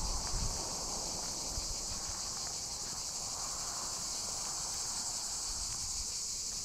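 A steady outdoor chorus of insects: an even, high-pitched hiss that holds without a break.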